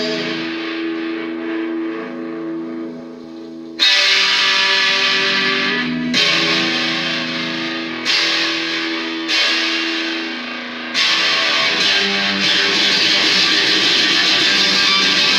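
Distorted electric guitar chords: a held chord rings and fades, then single chords are struck roughly every two seconds and left to ring, and after about eleven seconds it breaks into steady, continuous strumming.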